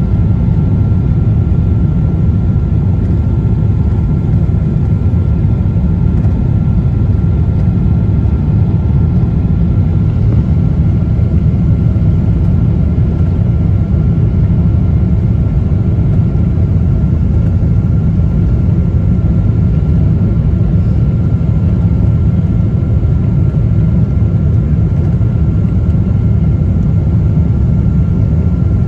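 Steady cabin roar of a Boeing 777's engines and rushing airflow heard from a window seat during descent on approach with flaps extended, deep and even, with a thin steady whine above it.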